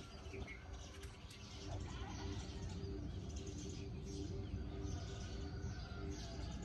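Birds chirping, with a dove cooing in repeated low notes from about halfway through, over a low steady rumble.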